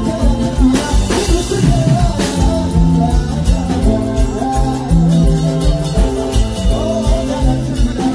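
Live dangdut band playing a song over a steady drum beat, with keyboard and guitar and a singer's voice.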